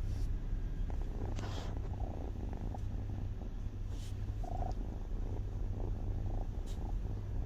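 Kitten purring steadily, with a few short crisp crunches as she bites pieces of dry kibble.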